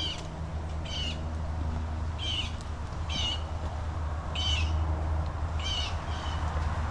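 Blue jays calling: a string of short, harsh screams, about one a second, some seven in all.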